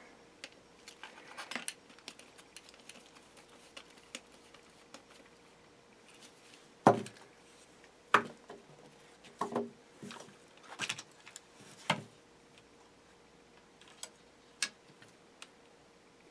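Light clicks and clinks of small tools and metal and plastic parts being handled while working on an RC buggy's chassis, scattered irregularly, with a handful of sharper knocks in the middle.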